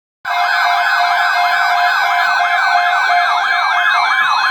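Electronic emergency alert tone opening an Emergency Alert System message. Two pitches warble up and down past each other about four times a second over a steady tone, starting abruptly and running loud throughout.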